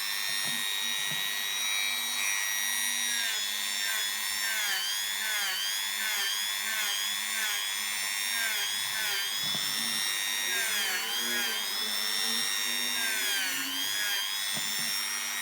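Small handheld rotary tool running with a high whine that dips in pitch again and again as it is pressed against model locomotive wheel rims to polish them.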